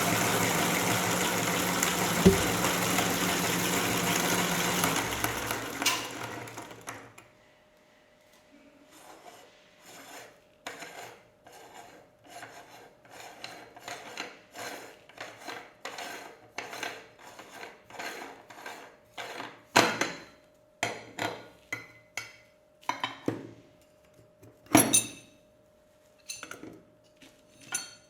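Meat grinder motor running with a steady noise, winding down and stopping about six seconds in. After it stops comes a long run of irregular short scrapes, clicks and clinks, like utensils and dishes being handled.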